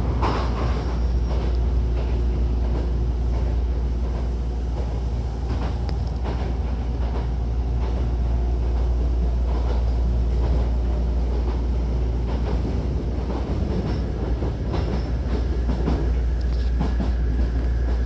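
Hankyu 1000-series electric train running, heard from inside the car: a steady low rumble with light clatter of the wheels over rail joints.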